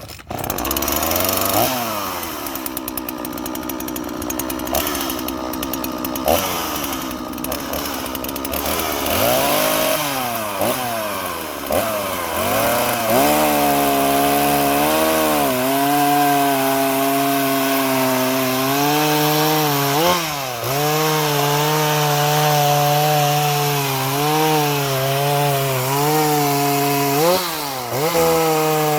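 Oleo-Mac GSH 40 two-stroke chainsaw revving up and down for the first dozen seconds, then running at high speed cutting wood, the pitch sagging briefly under load a few times.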